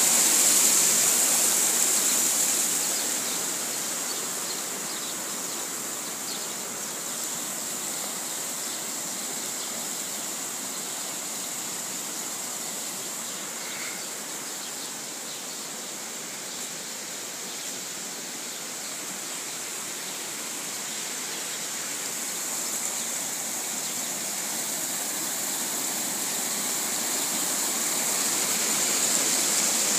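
Water rushing through the open concrete channels and outflows of trout raceways: a steady rushing hiss, loudest at the start and again near the end, fainter in the middle.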